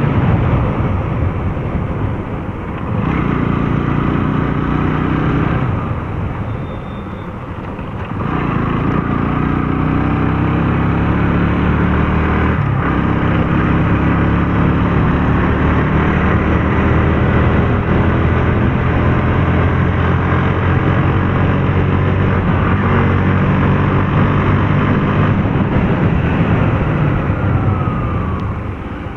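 Bajaj Pulsar NS motorcycle's single-cylinder engine under hard throttle while riding, its revs climbing slowly and steadily after an easing-off about six seconds in. The bike is picking up poorly: the revs rise but the speed stays around 60 km/h.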